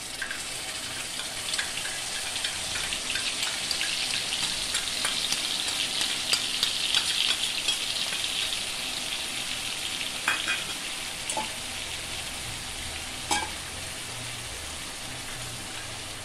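Wet masala paste sizzling and crackling in hot oil with cumin in a metal kadai, the hiss swelling to its loudest about seven seconds in and then easing off. A few sharp knocks near the middle and later.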